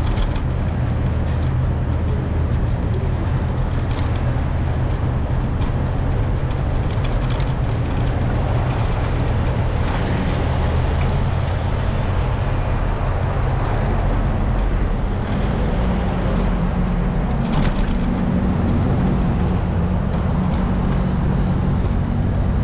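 Steady low rumble of wind and road noise from riding through city streets, with a few faint clicks.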